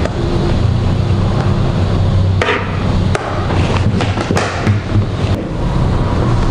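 A metal spoon scraping and knocking against a bowl and an aluminium baking pan as thick sponge-cake batter is scooped out and spread, with several short sharp knocks, the strongest about two and a half and four and a half seconds in. A steady low hum runs underneath.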